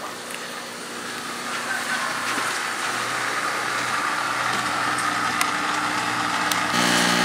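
A motor running with a steady hum and hiss that grows slowly louder, with a stronger pitched hum coming in suddenly near the end.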